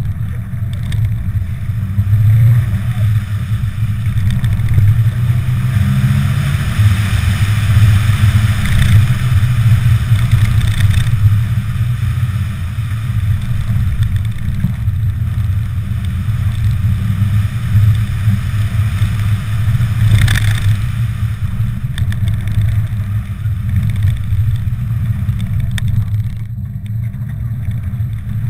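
Rallycross car driven hard on a loose dirt course, heard from inside the cabin: a steady, loud engine and road drone whose pitch rises and falls with the throttle, with a rushing hiss that swells for a few seconds.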